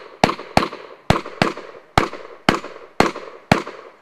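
Shotgun fired in rapid succession: eight loud shots, about two a second, each trailing off briefly.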